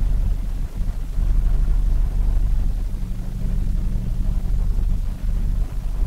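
2003 Toyota Matrix four-cylinder engine idling roughly, a low uneven rumble that dips and surges. The engine is shaking because cylinder 4 is misfiring.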